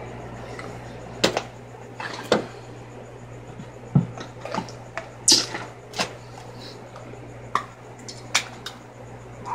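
Makeup compacts and tools being handled: about eight sharp plastic clicks and knocks at uneven intervals, over a steady low hum.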